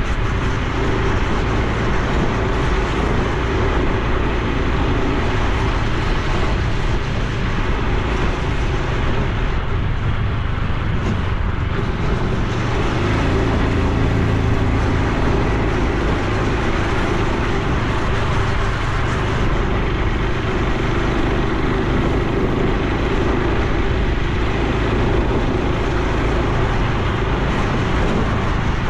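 Honda Super Cub C125's air-cooled single-cylinder engine and exhaust running steadily while the bike rides along, with rushing wind and road noise.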